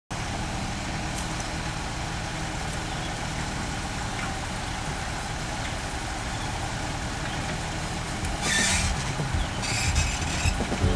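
Backhoe loader's diesel engine running steadily while it digs, with two short hissing bursts and a few knocks near the end as it gets louder.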